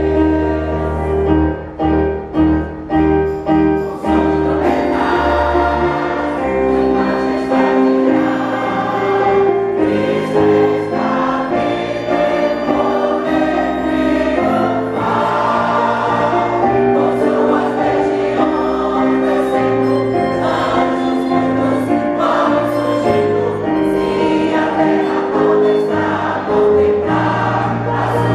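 A choir singing a Christian hymn of praise. In the first few seconds it sings a few short clipped chords, then holds long sustained notes.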